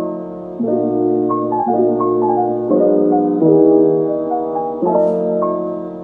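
Background music: a gentle piano piece with slow chords that change about once a second under a light melody.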